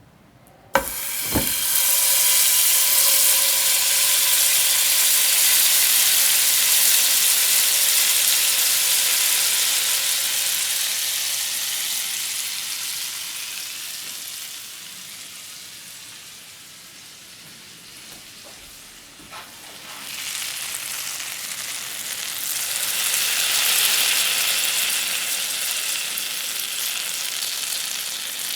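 Food frying in hot oil, a loud sizzling hiss. A sharp click about a second in starts a strong sizzle that slowly dies down over the first half. After another click about two-thirds of the way through, it swells up again.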